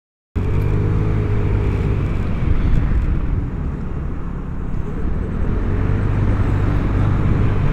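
Vespa GTS300 HPE scooter's single-cylinder engine running as the scooter rides through a bend, cutting in suddenly just after the start. The level dips slightly near the middle and builds again toward the end.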